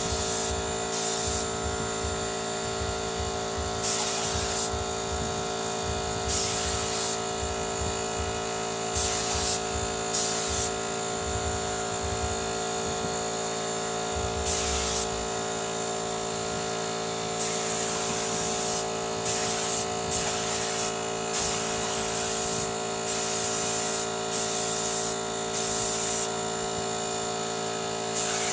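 Motomil 24-litre air compressor running with a steady hum, while compressed air hisses out in repeated short bursts.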